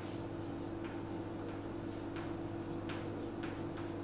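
Chalk writing on a chalkboard: a run of faint, irregular taps and scratches as the chalk forms each letter, over a steady low hum.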